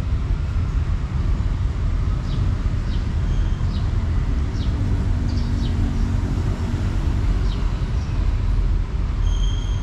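Steady low outdoor background rumble, with short high chirps scattered through, about ten of them.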